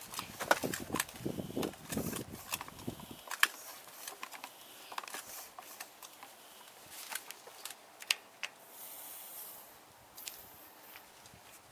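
Scattered clicks and knocks of things being handled, with heavier rustling and bumping in the first three seconds and a short hiss about nine seconds in.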